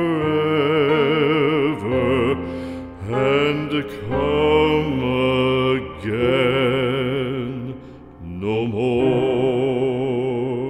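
Classical art-song singing: a trained voice holding long notes with wide vibrato, in several phrases, over sustained accompaniment.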